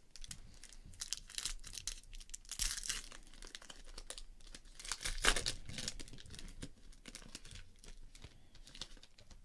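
Foil trading-card pack being torn open and crinkled by hand: a busy run of crackly rustling, loudest about three and five seconds in.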